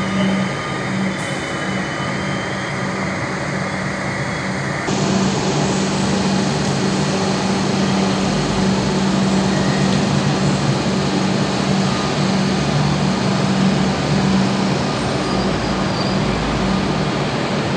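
Comeng electric suburban train standing at a station platform: a steady electrical hum with a lower pulsing note over general station noise, growing louder and brighter about five seconds in.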